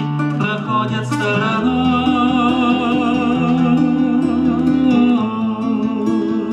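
A song with a sung voice holding long notes with vibrato over acoustic guitar accompaniment.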